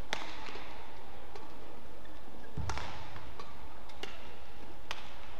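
Badminton rackets striking a shuttlecock in a rally: four sharp cracks a second or so apart, the second one with a low thud.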